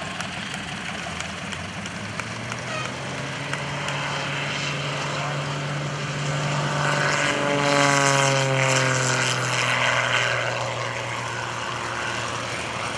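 MXS aerobatic plane's Lycoming IO-540 engine and propeller at takeoff power, growing louder as it passes close. About eight seconds in, its pitch drops as it goes by, then it fades as it climbs away.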